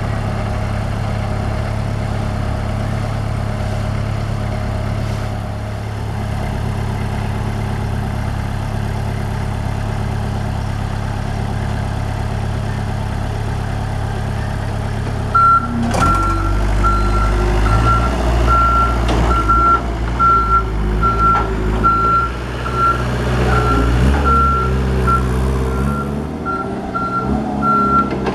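Three-wheeled truck-mounted forklift's engine running steadily. About halfway through, its backup alarm starts a high, evenly repeating beep, and the engine works harder as the forklift moves off.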